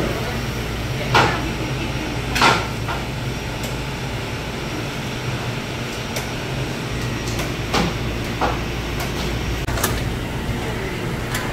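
Fast-food restaurant ambience: a steady low hum of ventilation with scattered knocks and clatters from the kitchen and counter. The two loudest knocks come about a second and two and a half seconds in.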